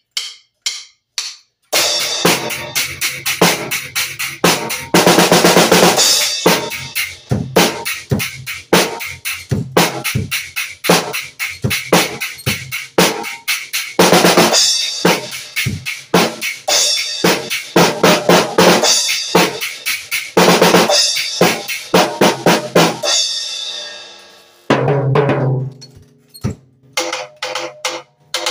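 Drum kit played in a solo: fast strokes on snare and toms, with bass drum and cymbal crashes. About 23 seconds in it dies away, then a few sparser hits follow near the end.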